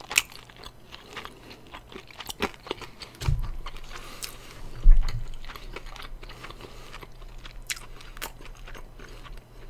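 Close-up crunching and chewing of crispy fried chicken, with many small crackles as the crust is bitten. A couple of dull thumps come about three and five seconds in.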